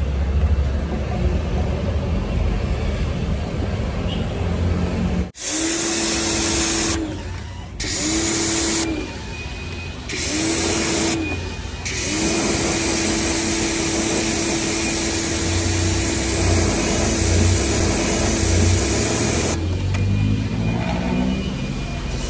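Electric pressure washer spraying in four short bursts, its motor hum rising each time the trigger is pulled, then spraying steadily for about eight seconds before cutting off. A low rumble comes before it, during the first five seconds.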